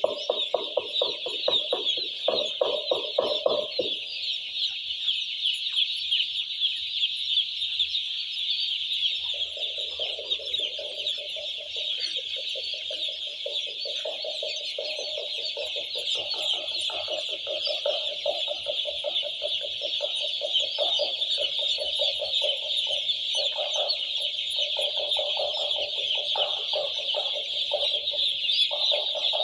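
A large flock of young broiler chicks cheeping continuously, many high peeps overlapping into a steady chorus. Alongside it runs a lower, rapidly pulsing sound for the first few seconds; it stops, then returns about nine seconds in and keeps on.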